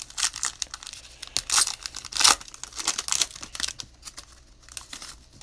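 Crinkling and tearing of a basketball trading-card pack wrapper being opened by hand, in quick irregular rustles, with the loudest tears about one and a half and two and a quarter seconds in.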